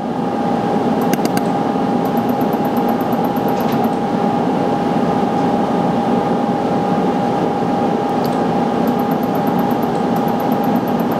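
Steady running hum of a benchtop laser welder's cooling fan, with a steady whine in it, and a few short runs of rapid faint high-pitched ticks.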